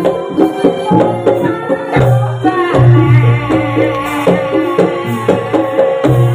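Kuda lumping accompaniment music: a Javanese gamelan-style ensemble playing a busy rhythm of drum strokes and struck, ringing metal notes, with a deep low tone that comes in about two seconds in.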